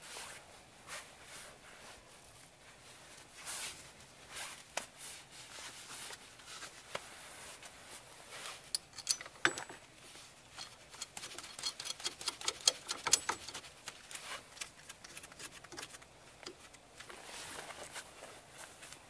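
Light metallic clicks and clinks as a slide-hammer hub puller is fitted to a car's rear wheel hub and its nuts are turned by hand. Scattered at first, then a quick run of sharp clicks past the middle.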